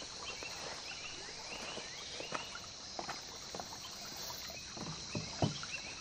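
Rainforest ambience: a steady high drone of insects with scattered short chirps, and a few sharp knocks about two, three and five seconds in.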